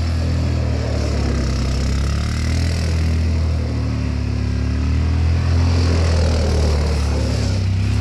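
ATV engine idling steadily at a constant pitch, close by.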